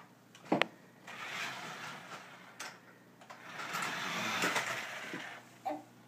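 Toy remote-control truck's small electric motor whirring as it drives, in two runs, the second louder and longer. A sharp knock about half a second in is the loudest sound.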